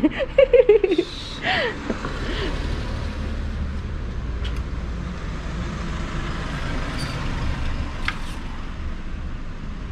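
Steady low rumble of a motor vehicle's engine running, with a few faint clicks.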